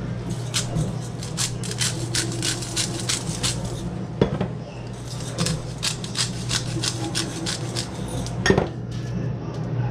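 Hand-twisted salt grinder turned over fish, a fast run of ratcheting grinding clicks in two spells, the second starting about halfway through. Two sharper single knocks come between and after the spells, over a low steady hum.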